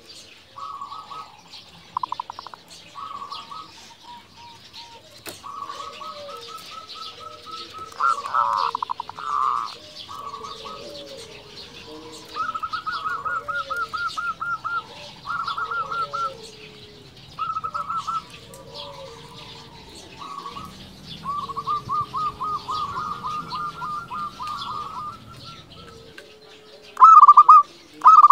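Zebra dove (perkutut) singing: repeated phrases of quick, rolling staccato coo notes, each half a second to two seconds long, with lower, softer coos between them. The loudest phrases come near the end.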